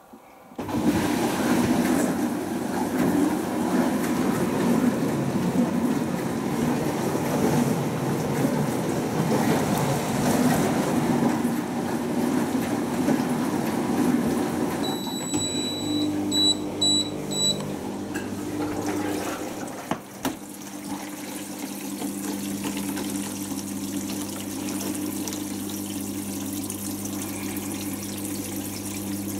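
Hotpoint Aquarius+ FDW70 dishwasher's drain pump cutting in abruptly and pumping water out with a loud rush. After about twenty seconds it settles to a steadier pump hum. A brief high-pitched tone, broken several times, comes about fifteen seconds in.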